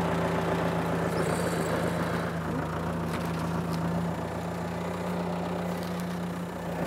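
Small compact vineyard tractor's engine running steadily at an unchanging speed.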